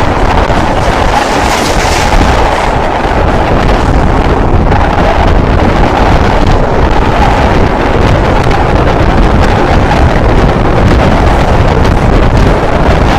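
Train running across the Forth Bridge, heard from inside the carriage: a loud, steady rumble and rush of wheels and wind that does not let up.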